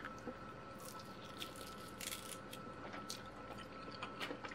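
Quiet chewing of a bite of chicken drumstick: soft, irregular wet mouth clicks and smacks.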